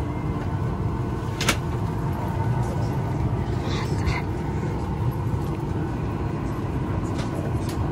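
Steady low hum of an airliner cabin at the gate during boarding. A single sharp click comes about a second and a half in, and faint voices are heard near the middle.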